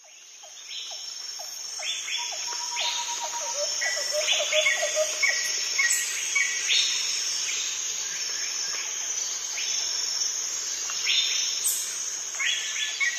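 Outdoor nature ambience that fades in: insects trilling steadily at a high pitch, with birds chirping in short repeated calls over them.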